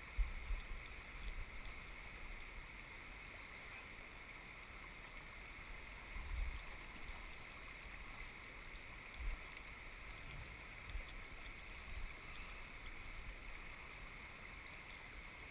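Shallow river current running over a gravel riffle, a steady rush of water, with a few short low thumps on the microphone.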